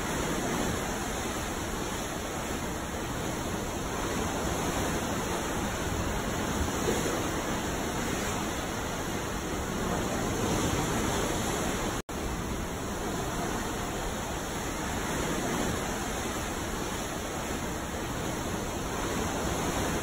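Ocean waves: a steady wash of water noise that swells and eases slowly, with a split-second drop-out about twelve seconds in.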